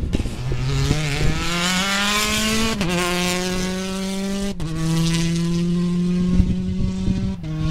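Rally car engine accelerating hard through the gears as it drives past. Its pitch rises and then drops sharply at each upshift: about three seconds in, about four and a half seconds in, and again near the end.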